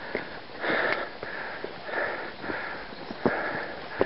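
Quick, heavy breathing of a hiker out of breath while climbing uphill, one puff about every half second, with a few sharp knocks in between.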